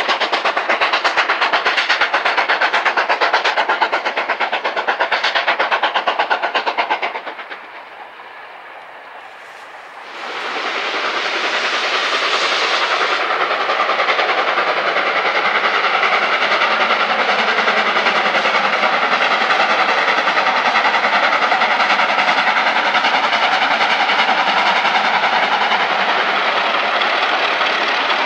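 Steam locomotive working hard with a fast, even stream of exhaust beats. The sound drops away for a couple of seconds about eight seconds in, then a steam locomotive, 8624, is heard working steadily as it climbs a gradient.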